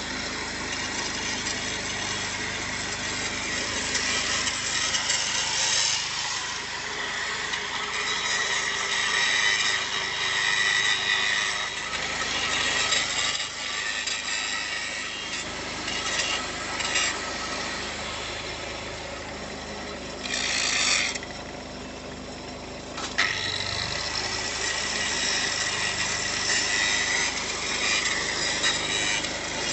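Pipe arc welding: the steady crackling sizzle of the arc runs on, stops for about two seconds after a louder burst around two-thirds of the way through, then strikes up again. A steady engine hum runs underneath.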